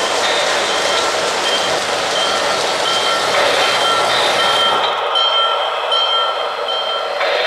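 Model steam locomotive's sound system: a steady loud steam hiss with a bell ringing about every two-thirds of a second. The hiss cuts off about five seconds in, and the bell keeps ringing.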